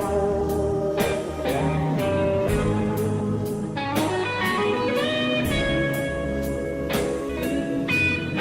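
Instrumental break in a blues-rock song: an electric guitar plays a melodic lead line, with some sliding notes, over bass and drums keeping a steady beat of about two strokes a second.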